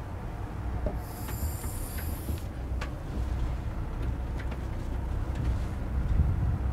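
Steady low rumble of room noise, with a few faint taps of a hand on a touch-screen whiteboard and a brief high hiss about a second in.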